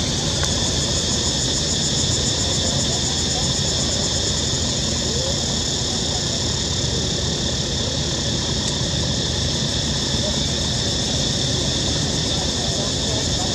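Steady outdoor background: a continuous high-pitched insect drone, typical of a cicada chorus, over a low rumble, unchanging throughout.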